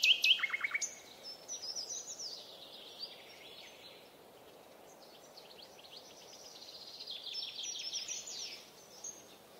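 Songbirds chirping: a fast trill at the start, scattered faint chirps, then a run of quick, high chirps near the end.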